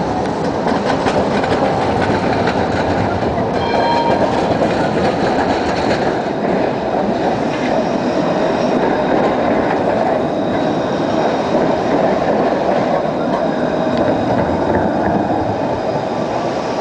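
Bombardier Eurotram rolling past at close range, a steady rumble of wheels on rail. About four seconds in there is a brief high-pitched tone.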